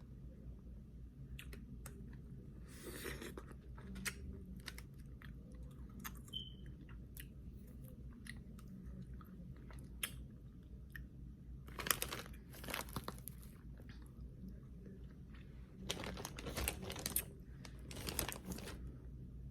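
Crunching of frozen freezer frost ice: scattered crackles with denser crunching bursts about three seconds in, around twelve seconds and again from about sixteen to eighteen seconds, over a faint steady low hum.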